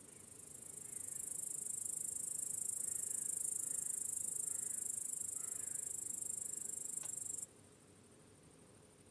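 Cricket trilling: a high, fast, steady buzz that swells in over about the first second and cuts off suddenly about seven and a half seconds in.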